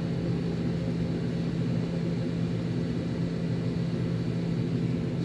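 Steady drone of an electric heat gun blowing hot air to shrink heat-shrink tubing over a soldered wire joint.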